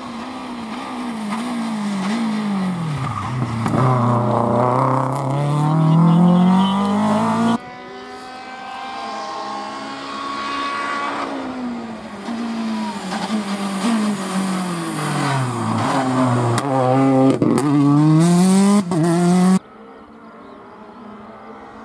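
Two rally cars passing one after the other. Each one's engine note drops as it brakes for the bend, then climbs again in steps through the gears as it accelerates away, with sharp pops during the second car's run. It goes quieter for the last two seconds.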